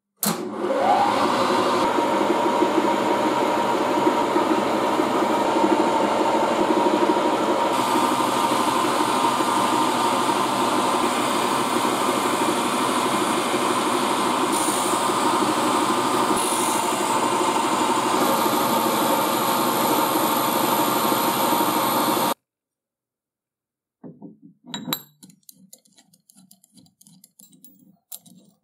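Vertical milling machine running, its end mill cutting into a round metal blank: a steady machine noise with a held whine, which stops abruptly. Near the end, a few light clicks and taps of metal parts being handled.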